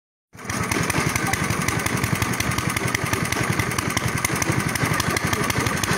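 A small engine on a homemade dragon-shaped ride-on machine running steadily, with rapid, even firing pulses.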